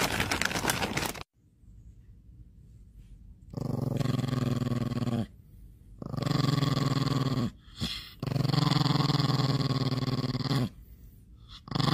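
Small Chihuahua growling: three long, low, steady warning growls, a few seconds each, with short pauses between them and a fourth starting near the end. The dog bares its teeth as it growls.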